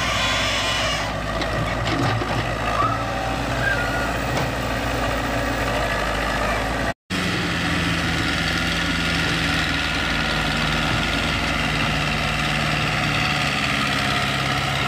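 A Caterpillar 312C excavator's diesel engine running steadily, then, after a sudden brief dropout about halfway, a different diesel engine running steadily: the Isuzu engine of a homemade tracked dump cart crawling through mud.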